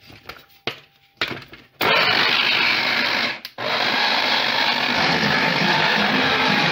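Electric blender starting up and running, blending pineapple chunks and other ingredients with a little water, after a few clicks of the jar and lid being handled. It cuts out for a moment about a second and a half after starting, then runs on steadily.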